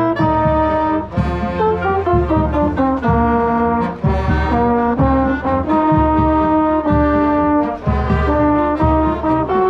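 Marching band brass section playing a tune in full chords, with the mellophone close to the microphone. Held notes change about every half second to a second over a steady low bass line.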